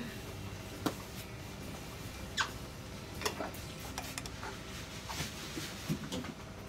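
Cleaning noises at a wooden counter as it is wiped down with a cloth: quiet rubbing, with a few short, scattered clicks and squeaks.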